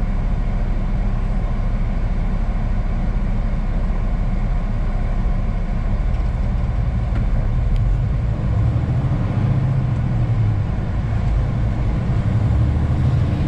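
Semi-truck's diesel engine heard from inside the cab, idling steadily while stopped at a light. From about eight seconds in, the drone grows fuller and louder as the truck pulls away and turns.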